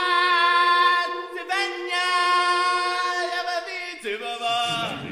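Voices singing a long, held 'ahh' note like a choir. It breaks off briefly about a second and a half in, then is held again and shifts pitch near the end.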